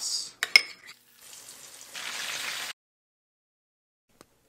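Breaded chicken frying in hot oil, a sizzle that starts faint, grows louder about two seconds in and cuts off abruptly. Two light clicks come just before it.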